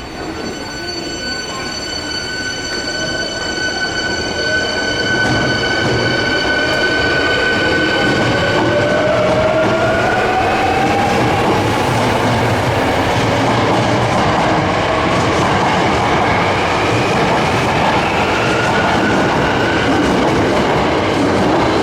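Subway train pulling out of an underground station platform: its traction motors whine, rising in pitch as it speeds up, over the wheels clattering on the rails. The sound grows louder over the first few seconds, and a set of steady high tones fades out partway through.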